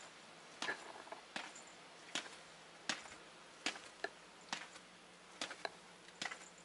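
Footsteps going down concrete stairs, a sharp step about every three-quarters of a second.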